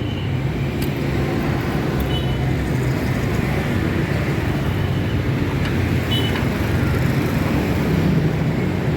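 Single-cylinder Dongfeng 8 hp hopper-cooled diesel engine running steadily.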